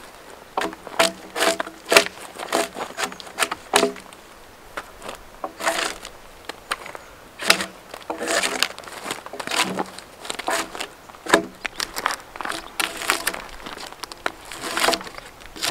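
Bark being scraped and stripped off larch logs by hand: a run of irregular scraping, crackling strokes, one or two a second, some with a short ringing tone.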